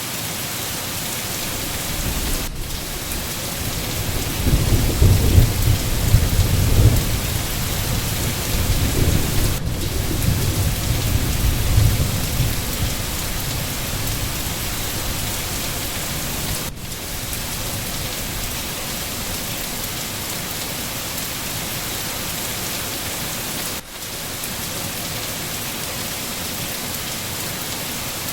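Steady rain falling in a forest, with a long rolling rumble of thunder that swells a couple of seconds in and fades out about halfway through.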